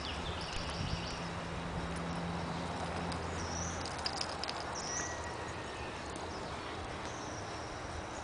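Outdoor ambience: a steady hiss of noise with a low hum for the first few seconds and several short high-pitched calls scattered through it.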